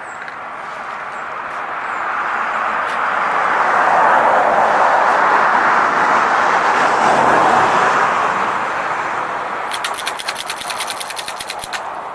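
A vehicle passing on a nearby road: its tyre and engine noise swells for about four seconds, holds, then fades away. Near the end comes a quick run of sharp high clicks lasting a second or two.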